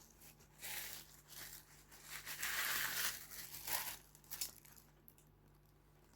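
Plastic packaging crinkling and rustling as it is handled, in several irregular bursts, loudest about halfway through.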